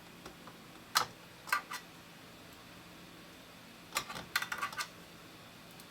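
Small sharp clicks and taps of tweezers and small parts being worked inside an opened Mac mini G4: a click about a second in, two more shortly after, and a quick run of clicks near the end.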